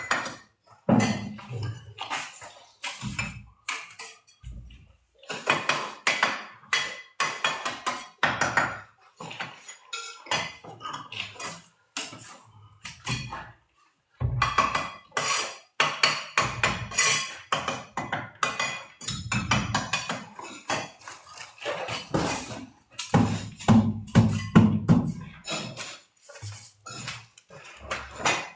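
Hand tools clinking and knocking against ceramic tile and metal during tiling work, in irregular clusters of sharp clicks with a short pause a little before halfway.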